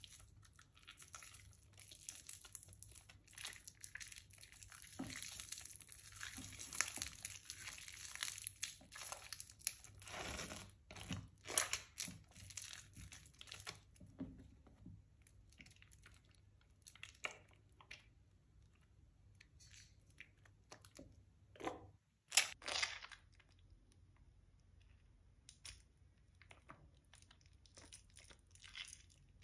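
Soaked, mushy Palmolive soap being squeezed and crumbled by hand in soapy water. It gives wet crackling, tearing and squishing sounds that are dense through the first half and sparser later. A brief hush a little past the middle is followed by the loudest squish.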